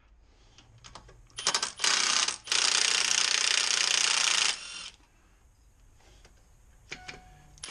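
Milwaukee 3/8-inch cordless impact wrench hammering on a 13 mm bolt of a front engine bracket to break it loose. It fires in a few short bursts about a second and a half in, then runs steadily for about two seconds before stopping.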